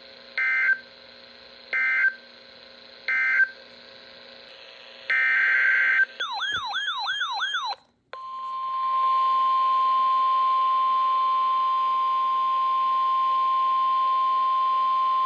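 Weather radio emergency alert tones: three short screeching data bursts of an end-of-message code, then a longer data burst about five seconds in, followed by about two seconds of fast warbling, rising tones. After a brief gap, the steady single-pitch 1050 Hz weather radio attention tone starts about eight seconds in and holds.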